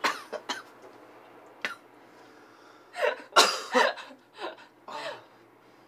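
A man coughing in fits after drawing in cigarette smoke, as someone not used to smoking does. There are a few short coughs, then the loudest burst about three seconds in, then two weaker coughs.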